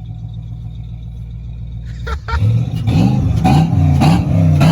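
Fox-body Mustang engine idling steadily, then about two seconds in revved up against its two-step launch rev limiter, the pitch repeatedly climbing and falling back with sharp pops as the limiter cuts in: a two-step check.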